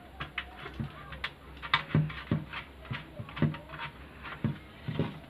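Irregular light clicks, taps and small knocks of a nut being turned by hand onto the bolt that holds a transformer down in a metal amplifier cabinet.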